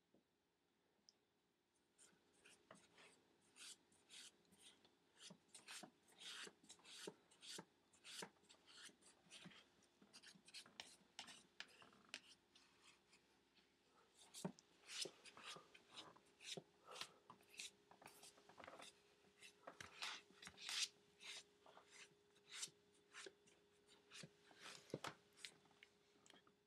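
Cat claws scratching and rustling against a plastic laundry basket and the clothes in it, in many short strokes about one or two a second, over a faint steady hum.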